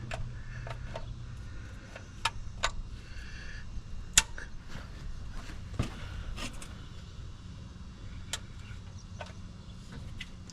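Vise grips clamping and working at a stripped oil drain plug: irregular sharp clicks and taps of the pliers on the plug, the loudest about four seconds in.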